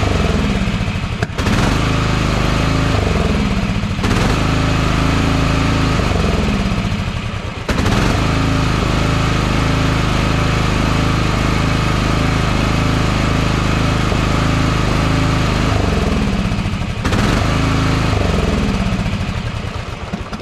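Briggs & Stratton engine of a riding lawn mower running, its pitch sagging and recovering several times, then dying near the end: engaging the blade is killing it.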